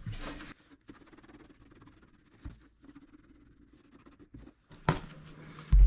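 Quiet work noise with faint handling sounds, a sharp click about five seconds in, and a heavy thump just as it ends.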